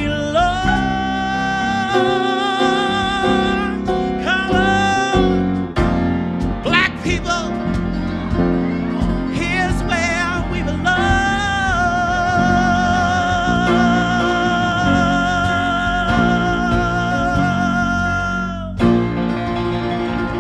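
A solo singer belting the final long notes of a jazz show tune over piano accompaniment: a note held with vibrato for several seconds, a few short phrases, then a last note held about seven seconds that cuts off near the end as the song closes.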